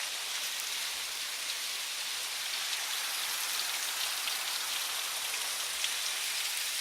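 Steady hiss of falling water, even throughout, with a faint patter of drops.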